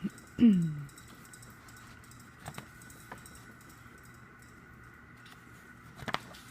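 Album packaging and plastic CD case being handled, giving a few light clicks and taps. About half a second in comes a short, low, voice-like sound falling in pitch, the loudest thing here.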